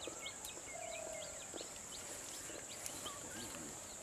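Birds chirping in quick, short calls over a steady high-pitched insect drone, with one longer held whistle-like note about a second in.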